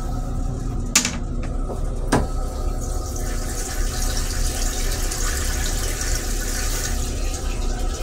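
Railcar toilet flushing: a sharp click about a second in and a thump a second later, then blue flush fluid hissing as it sprays into the stainless-steel bowl for about four seconds.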